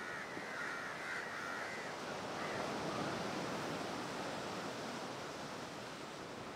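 Small waves breaking and washing along a shore, a steady surf hiss. A few harsh calls sound over it in the first two seconds.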